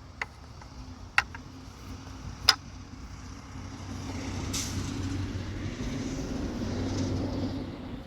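A motor vehicle's rumble, swelling over several seconds and easing off near the end, with three sharp clicks in the first few seconds.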